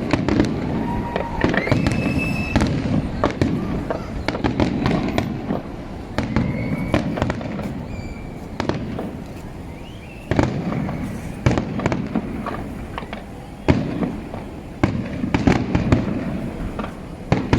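A fireworks display going off continuously: many sharp bangs and cracks in quick succession over a steady rumble of explosions.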